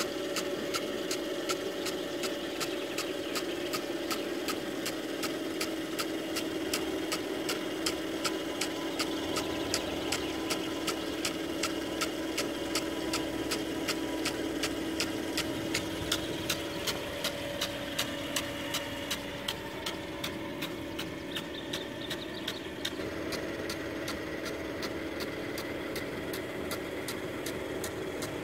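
Travelling hose-reel irrigator watering: the sprinkler gun clicks about twice a second over a steady hum and the hiss of its water jet. The clicks fade about two-thirds of the way in and stop soon after, leaving the steady hum.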